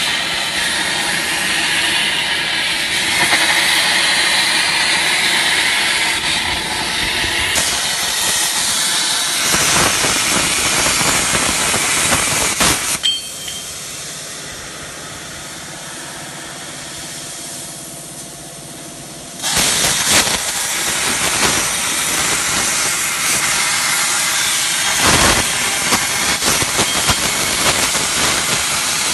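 CNC gantry plasma cutter's torch cutting steel plate: a loud, steady hissing rush of the arc. It drops to a much quieter background noise for about six seconds in the middle, then the loud cutting hiss starts again.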